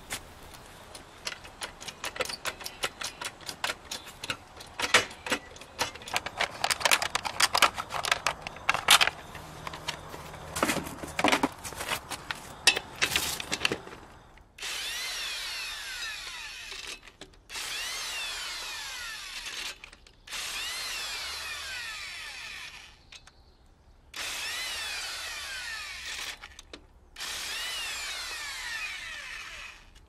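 Irregular clicks and knocks for the first half, then a corded electric impact wrench hammering the lug nuts loose in five separate runs of about two to three seconds each, one for each nut on the steel wheel.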